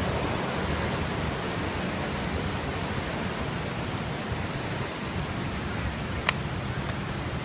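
Whitewater river rapids rushing steadily. A single sharp click comes about six seconds in.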